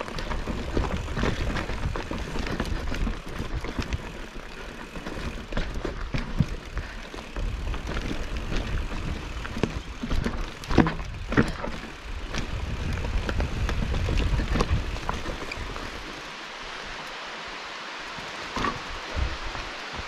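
Nukeproof Scout hardtail mountain bike ridden over a rooty, rocky trail: a low rumble with tyres and frame rattling and sharp knocks from rocks and roots. About sixteen seconds in the rumble and clatter drop away, leaving a steady hiss.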